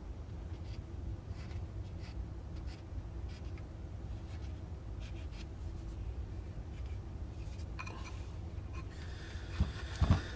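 Short, faint scratching strokes of a small hand tool working plastic wood filler around the eye of a carved wooden decoy head, over a steady low hum. Two soft thumps come near the end as the decoy is set down on the bench.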